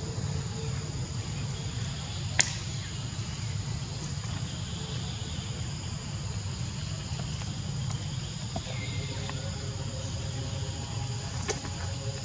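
Outdoor woodland ambience: a steady high-pitched insect drone over a low rumble, broken by two sharp clicks, one about two seconds in and one near the end.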